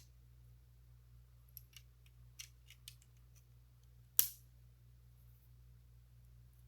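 Small plastic Lego pieces clicking as they are handled and pressed together: a few light clicks, then one sharp, louder snap about four seconds in.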